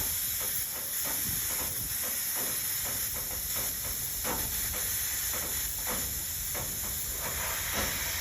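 Air hissing and whistling steadily out of a tire's open valve stem with the valve core removed, as the tire is deflated to low pressure so sealant can be pumped in.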